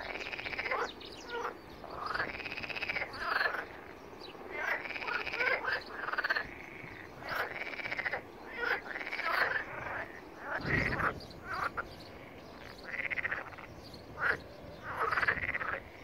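Frogs croaking their mating calls: repeated pulsed croaks about once a second, each rising and falling in pitch. A brief low thump comes about two-thirds of the way through.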